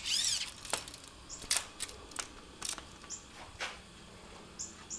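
Light handling sounds of a steel tape measure and pencil worked against a wall: a short scratchy slide at the start, then scattered sharp clicks and taps, with a few brief high squeaks as the pencil marks the wall.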